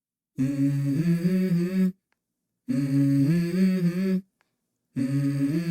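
Vocal music: layered humming voices holding a chord, in three phrases of about a second and a half each, with stretches of dead silence between them.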